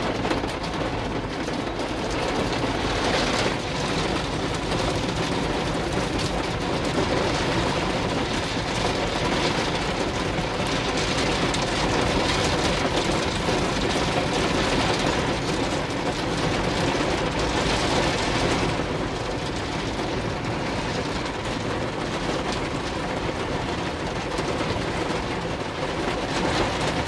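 Steady heavy rain together with the continuous rumble and wet-road hiss of a moving vehicle, swelling and easing slightly a few times.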